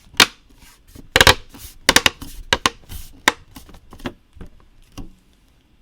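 Plastic model-kit parts clicking and knocking together as they are handled and fitted: an irregular run of sharp clicks and taps that thins out near the end.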